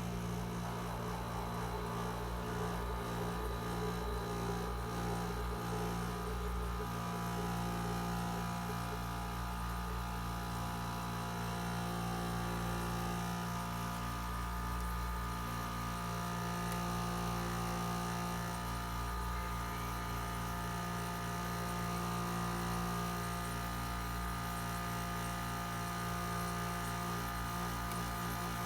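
Frigidaire 5000 BTU window air conditioner running in cooling mode with its compressor and fan on: a steady hum with a few held tones, including a faint high tone.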